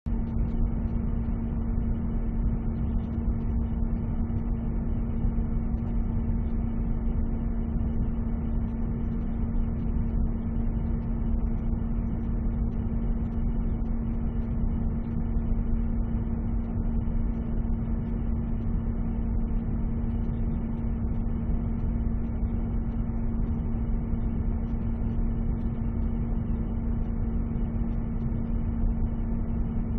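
Boiler room ambience: a steady low machine drone with an even hum and rumble, unchanging throughout.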